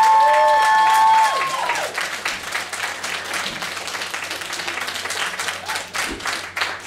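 The music ends on a long held note in the first couple of seconds, and the audience applauds with dense, steady clapping.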